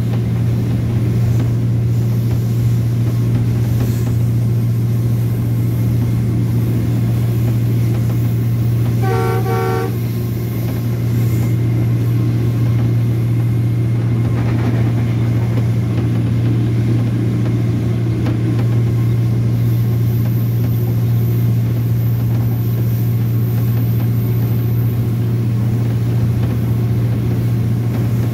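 Diesel locomotive running steadily at speed, its engine a constant low drone, with two short blasts of the horn about nine seconds in.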